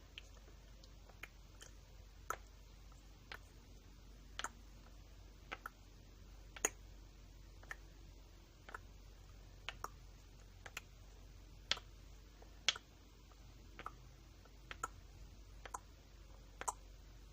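Short, sharp clicks or taps, roughly one a second at uneven spacing, a few louder than the rest, over a faint steady hiss.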